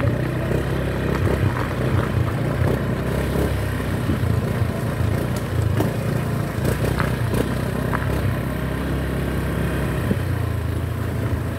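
Small motorcycle and scooter engines running steadily at low speed, with a few light clicks and knocks.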